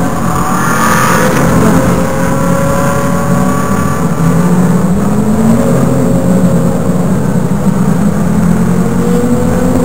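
Several Ferrari race car engines running at low revs in a slow-moving queue, their pitch drifting gently up and down.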